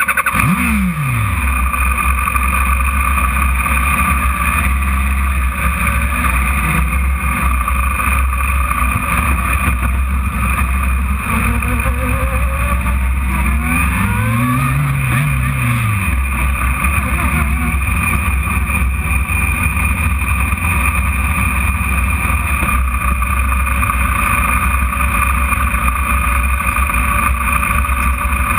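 Radical sports car driven hard on a sprint run, heard from the open cockpit: the engine's drone under heavy wind roar on the microphone, loud and steady, with one rise and fall in pitch about halfway through.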